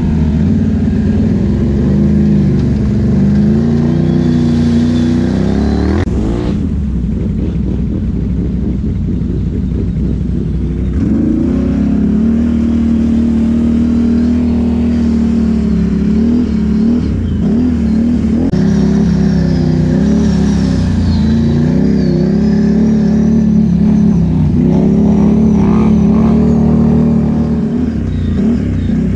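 ATV engine running under throttle on a muddy, water-filled trail, its revs rising and falling as it is ridden, with a sudden clunk about six seconds in.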